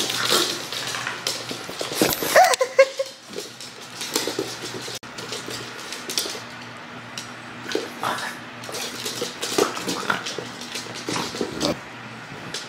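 A dog whines briefly about two seconds in, amid scattered light clicks, scuffs and rustles.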